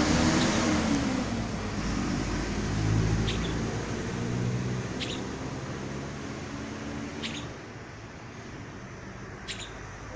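Steady rain hiss with a passing vehicle's engine hum that fades out about three quarters of the way through. A short high chirp sounds four times, about every two seconds.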